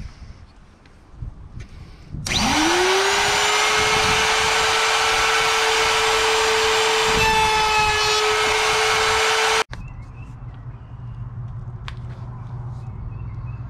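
Table-mounted wood router spins up with a quickly rising whine and runs at a steady high pitch while a board is pushed across it, cutting into the wood. It stops abruptly about ten seconds in, leaving a quieter low hum.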